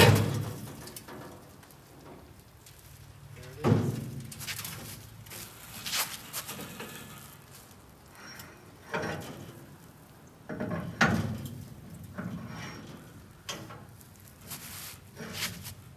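Bare VW Karmann Ghia body shell and its rotisserie clunking as the body is turned by hand: irregular metal knocks and clatter, the loudest right at the start and another a few seconds later, then smaller ones every couple of seconds.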